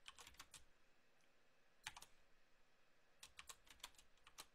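Faint computer keyboard typing in short bursts: a few quick keystrokes at the start, a single one about two seconds in, and a run of keystrokes a little after three seconds.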